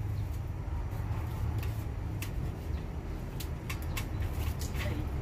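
Aluminium step ladder clicking and knocking under a man's feet and hands as he climbs it, a scatter of short, sharp clicks over a steady low rumble.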